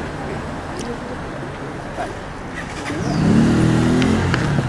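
Street traffic noise, with a vehicle engine growing louder about three seconds in as it passes close by.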